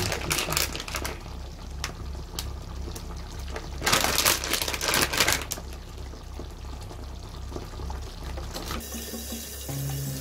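Wet kitchen sounds of a spoon stirring cream sauce in a frying pan, louder for a moment about four seconds in, over a steady low pulsing beat.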